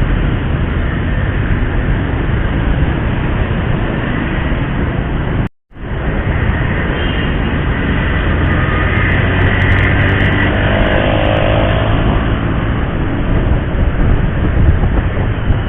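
Motorcycle riding along a city road: steady wind and road noise on the rider's microphone over the low hum of the engine. The audio drops out completely for a moment about five and a half seconds in.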